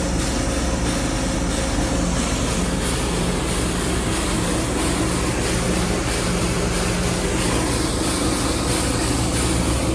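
Steady, loud machinery drone with a low hum running under it, unchanging throughout.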